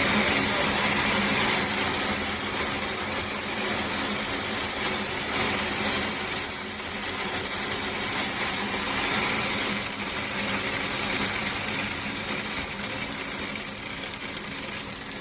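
International log truck's diesel engine running steadily, heard from inside the cab, with a constant low hum under a wash of engine and road noise.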